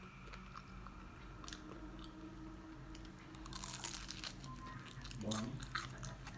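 Crunching of a fried turon's crisp spring-roll wrapper as it is bitten and chewed, in two bursts of crackling: one starting about three and a half seconds in, and a louder one a little over five seconds in.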